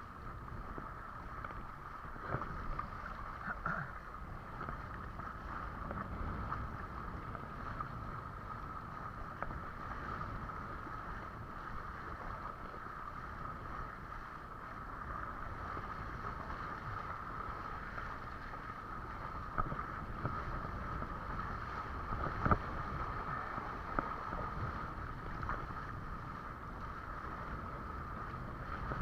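Windsurf board sailing on the sea: water rushing under the hull and wind on the microphone, with a steady high hum and a few sharp knocks, the loudest late on.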